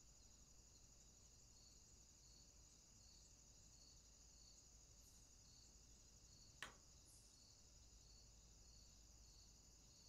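Faint, steady high-pitched chirring of stridulating insects, with a regular soft pulse repeating a little under twice a second. A single sharp click sounds about two-thirds of the way through.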